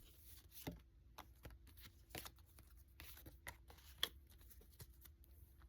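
Faint, scattered soft clicks and rustles of trading cards being handled and laid down one by one.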